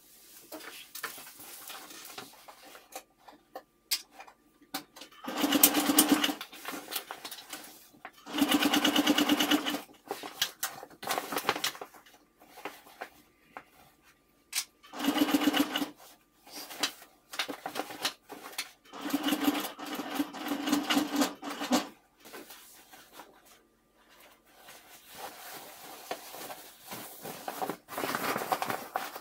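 Electric domestic sewing machine stitching a seam in four short runs of a second or two each, the needle going at a fast, even rate. Between and after the runs, fabric rustles as the bag is handled and turned.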